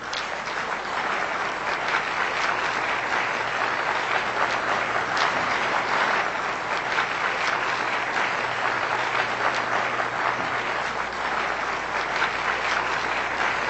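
Large audience applauding: a dense, steady spread of many hands clapping that swells up in the first second and holds.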